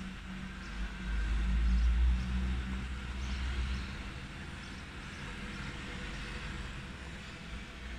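Outdoor background noise: a low rumble that swells about a second in and fades after about four seconds, over a steady hiss.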